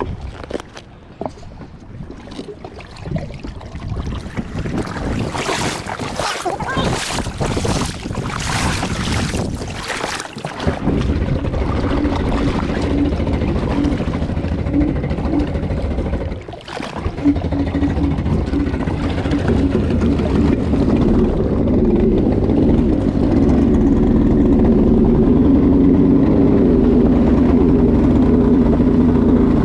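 Wind and water noise, then about ten seconds in the two-stroke twin engine of a 1990 Kawasaki 650SX stand-up jet ski starts running; it drops out briefly near the middle, picks up again and runs steadily louder over the last several seconds.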